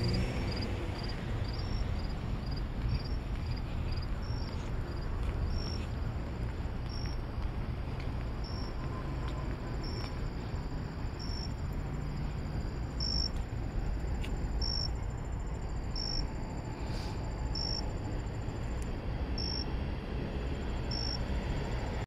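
A cricket chirping in short, evenly spaced high chirps, a little over one a second, growing louder about four seconds in, over a steady low rumble.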